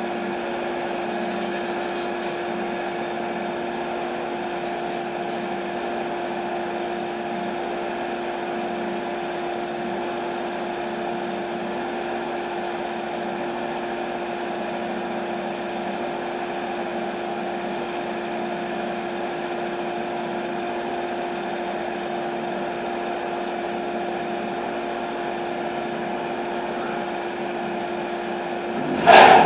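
Steady hum of sawmill machinery running with one clear tone and no cutting. Right at the end a sudden, much louder burst of machine noise cuts in.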